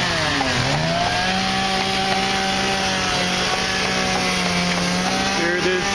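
Chainsaw running at high speed, its pitch dipping briefly about half a second in and climbing back, then holding steady.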